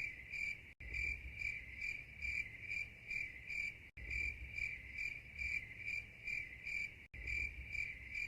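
Crickets-chirping sound effect: an even, high chirp about three times a second, looping with brief dead-silent breaks.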